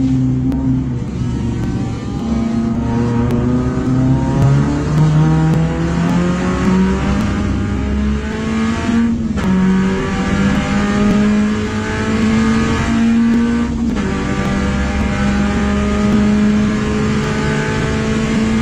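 Daihatsu Gino race car's swapped-in 1.5-litre 3SZ-VE inline-four, from the Perodua Alza, heard inside the cabin accelerating hard at full throttle. The engine note climbs in pitch, drops abruptly at two upshifts about nine and fourteen seconds in, and climbs again toward high revs.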